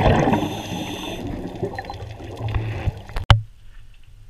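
Water bubbling and gurgling, heavy at first and slowly fading, cut off by a sharp click a little over three seconds in, after which it is much quieter.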